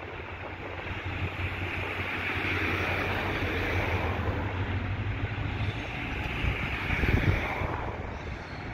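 EMD diesel-electric locomotive running light and moving slowly toward the listener, its diesel engine giving a steady low drone that grows louder over the first few seconds. A brief louder rumble comes about seven seconds in.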